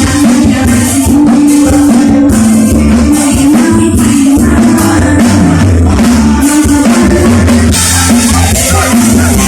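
Loud live band music with a woman singing over drum kit, bass and shaker percussion, played through a PA system.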